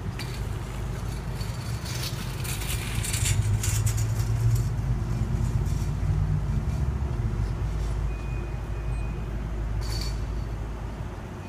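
Light rail train running toward the grade crossing, a steady low hum with bursts of hissing about two to four seconds in and a short hiss near the end.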